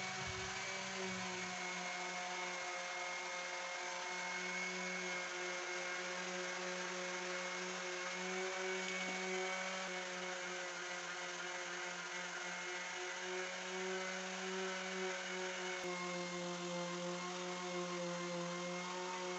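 A motor running steadily in the workshop: a constant pitched hum with a thin higher whine, its tone shifting slightly about three-quarters of the way through.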